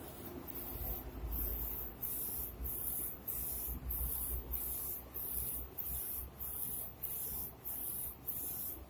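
UV flatbed printer's print-head carriage sweeping back and forth across a wooden board, a high hiss with each pass and a short break at each reversal, about two passes a second, over a low machine rumble. The passes start about a second in.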